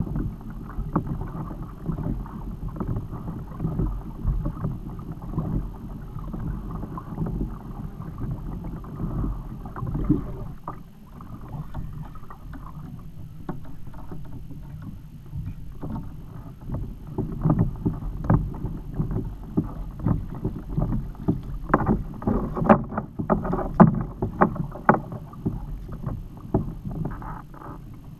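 Wind buffeting the microphone over water moving against a kayak hull, with scattered knocks and splashes that grow busier and louder in the last ten seconds as a hooked fish is fought to the side and lifted aboard.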